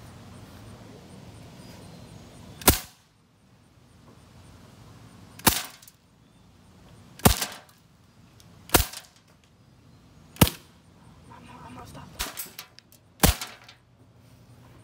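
A metal BB gun firing about seven single shots, a second or two apart, each a sharp crack, at glass nail polish bottles. Several shots are followed by a brief clatter.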